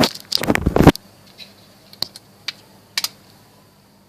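Handling noise: a short burst of rustling and knocking in the first second, followed by four light clicks about half a second apart.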